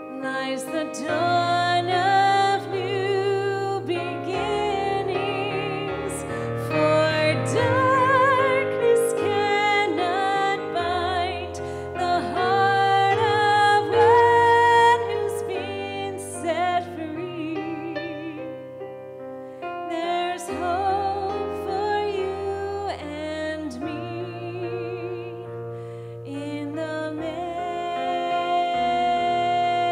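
Woman singing a slow Christmas song solo into a microphone over instrumental backing, with vibrato on the held notes.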